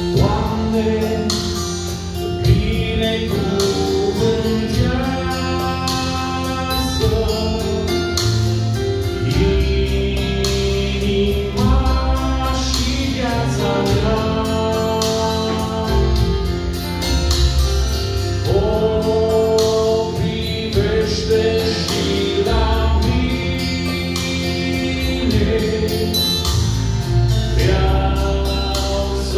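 Male vocal quartet singing a Romanian gospel song in harmony, over an instrumental accompaniment.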